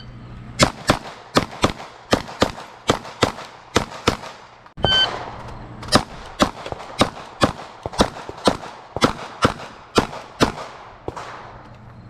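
A shot-timer beep, then Glock pistols firing rapid shots, about three to four a second. A second timer beep comes about five seconds in, and the rapid firing carries on almost to the end.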